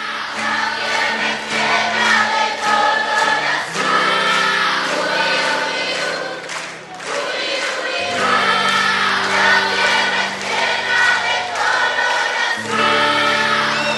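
Music with a choir singing long held notes; the harmony shifts to a new chord about every four seconds.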